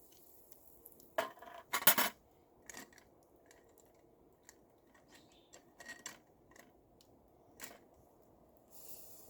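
A few short metallic clinks and clatters of camp cooking gear being handled, the loudest a quick cluster about a second or two in, with lighter knocks later.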